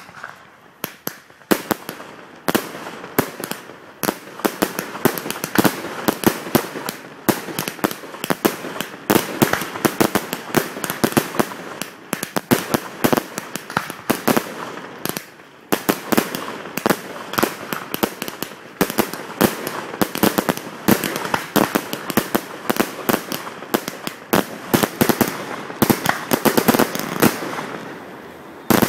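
Display fireworks firing in a rapid, near-continuous barrage of launches and bursting shells with crackle. The barrage eases briefly twice, around twelve and fifteen seconds in, then builds again.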